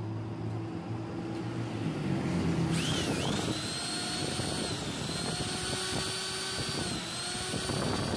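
Maktec angle grinder switched on about three seconds in, its motor spinning up quickly into a steady high whine that dips slightly twice. It runs on a freshly rewound, balanced armature, with very little vibration and little sparking at the brushes.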